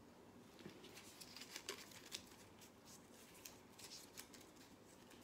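Faint rustling and crinkling of small folded paper slips being handled and unfolded by hand, in a run of short, scattered crackles.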